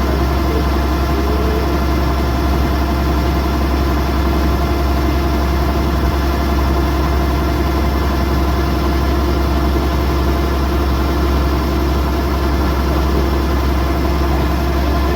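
Diesel engine of a Kubota DC108X combine harvester running steadily, a constant hum with a strong low drone.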